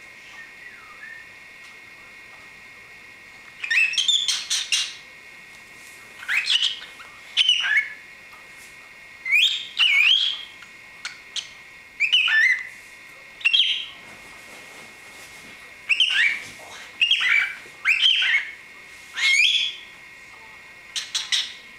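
Young cockatiel giving short whistled chirps and calls, sweeping up and down in pitch, in little clusters every second or two after a few quiet seconds.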